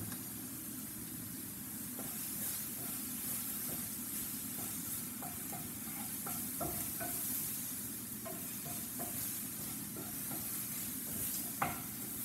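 Sliced red bell pepper, shallots and mushrooms sizzling steadily in olive oil and vegan butter in a skillet over a gas flame, turned down to a simmer. Short light clicks of a utensil stirring against the pan come from about halfway, with a sharper one near the end.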